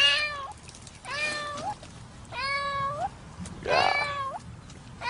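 A cat stuck in set concrete up to its head, meowing in distress. There are four calls, about one every second and a bit, each ending with a rising upturn.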